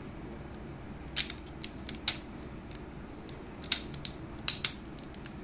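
Irregular small clicks and crackles as a screwdriver pries a TV panel's display board loose from the double-sided tape holding it, the tape peeling free bit by bit.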